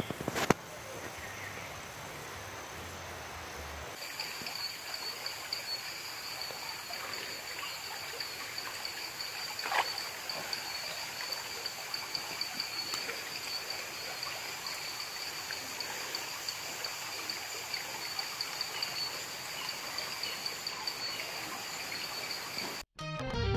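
Shallow creek water trickling, a steady soft wash, with insects chirring on steady high notes from about four seconds in and a couple of faint clicks. Music cuts in at the very end.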